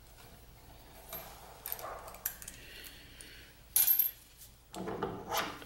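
Metal hand tools and mill parts being handled while the handwheel is loosened: light rubbing and rattling, then a sharp metallic clink about four seconds in.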